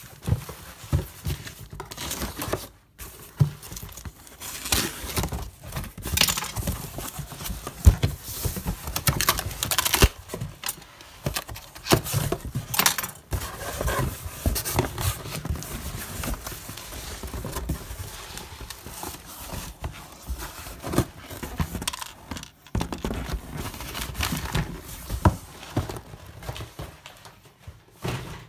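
Cardboard shipping box being handled and opened by hand, with irregular rustling, scraping and knocks of the cardboard and its packing tape.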